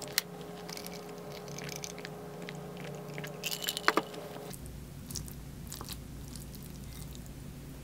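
Close-up eating sounds: chewing, then a cluster of sharp knocks and clinks from a glass of iced sparkling water just before the four-second mark. After that come light clicks and scrapes of a wooden spoon stirring rice in a ceramic bowl.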